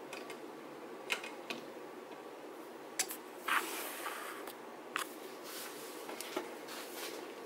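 Small metal clicks and knocks, with a short scraping rustle near the middle, as a speedometer's odometer assembly is set between the jaws of a bench vise and clamped.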